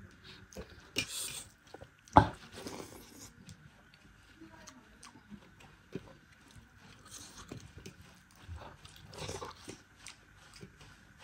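Close-up eating sounds: chewing and wet mouth noises, with scattered small clicks as fingers mix and scoop food on a steel plate. A single sharp click about two seconds in is the loudest sound.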